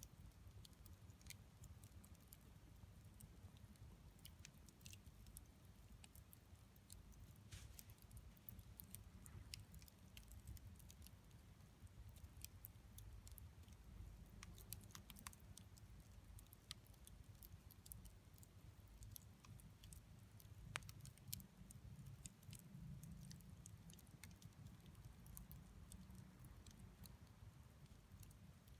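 Wood campfire burning, with faint, scattered crackles and pops over a low steady rumble; two slightly louder pops come a little past two-thirds of the way through.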